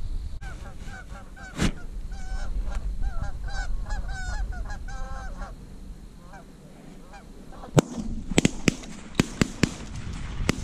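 Canada goose honks, many in quick succession, running from the start until about five and a half seconds in. From about eight seconds, a string of sharp knocks and clicks as the camera is handled among dirt and corn stalks.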